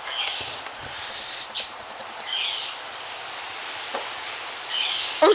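A boy's breathy gagging and hissing exhalations from a stomach full of milk, close to vomiting, with a sharp hissing sputter about a second in.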